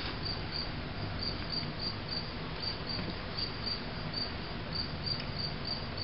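Cricket chirping steadily, short high chirps repeating about four to five times a second, over a low background hum.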